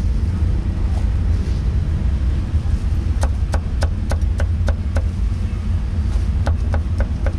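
Cleaver chopping meat on a thick wooden chopping block: a quick run of about eight chops, roughly three or four a second, starting about three seconds in, then a second run near the end, over a steady low rumble.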